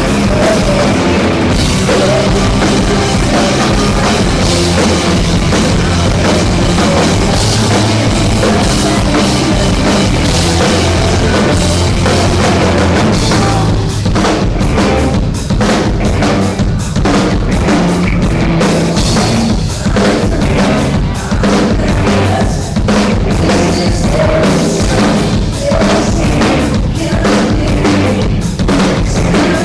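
Live rock band playing loudly during a soundcheck, with drum kit and amplified instruments and no singing. From about halfway the sound thins, with separate drum hits and brief dips between them.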